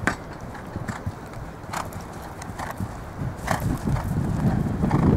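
Grey horse cantering on grass turf after clearing a show-jumping fence: dull hoofbeats. A single sharp knock comes right at the start.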